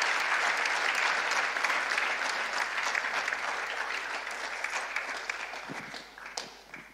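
Congregation applauding: a dense round of clapping that gradually fades and dies out near the end.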